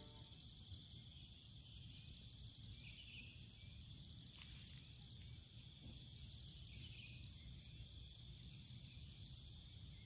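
Faint chorus of insects at dawn: a steady high-pitched trill with a pulsing beat of about three a second. A short higher call comes back about every four seconds over a low rumble.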